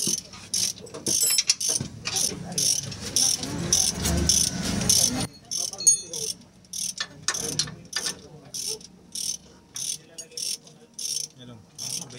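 Hand ratchet wrench being worked in steady strokes, a short burst of pawl clicking on each stroke, about two strokes a second. A low rumble runs under it for a few seconds near the start.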